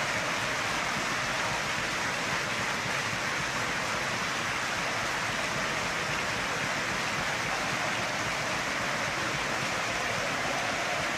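Large football stadium crowd applauding, a steady unbroken wash of clapping.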